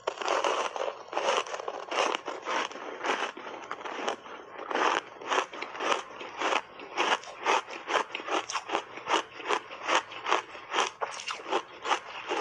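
Close-up chewing of crunchy ice coated in matcha milk powder: a fast, steady run of crunches, about two to three a second.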